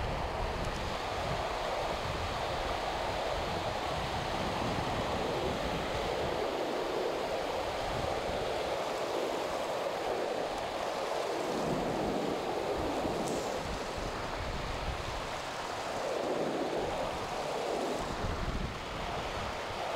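Shallow river water rushing steadily over a stony riffle, with gusts of wind rumbling on the microphone.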